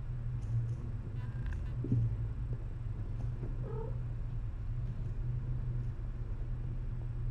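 Cats purring, a low steady rumble, with one short kitten mew about halfway through.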